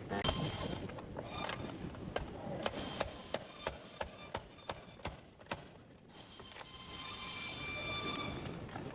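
Irregular sharp mechanical clicks and ticks during car body repair work, giving way about six seconds in to a steady high whine.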